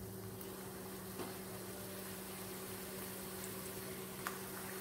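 Wheat-flour banana dough balls deep-frying in a small pan of hot oil, a faint steady sizzle, with a couple of soft clicks.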